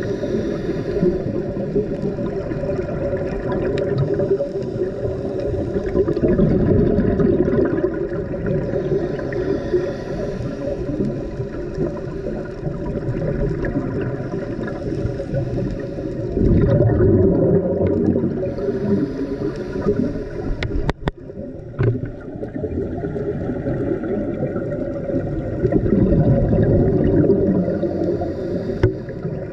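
Muffled underwater rumble of scuba regulator breathing and exhaled bubbles heard through an underwater camera housing, swelling about every ten seconds with each breath out. A few sharp clicks about two-thirds of the way through.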